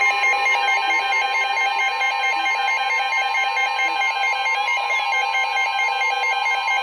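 Several NOAA weather radio receivers sounding their alert alarms together: a steady high warning tone holding over rapid, evenly repeated beeping from the radios' alarms, marking the start of a new warning.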